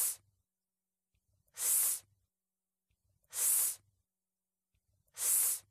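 A woman sounding the /s/ phoneme in isolation: a short hissing 'sss', repeated four times about every second and three quarters.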